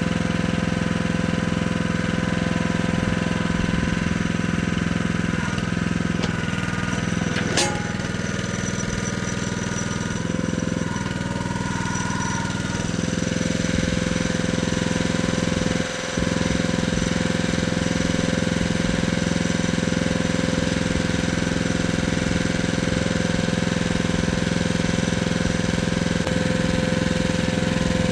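Jansen mini walking excavator's engine running steadily, with a sharp click about seven seconds in and a momentary drop in sound near the middle.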